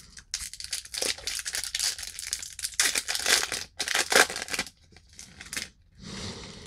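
Trading cards being handled, rustling and crinkling in a quick run of short scraping bursts that thins out and goes quieter after about four and a half seconds.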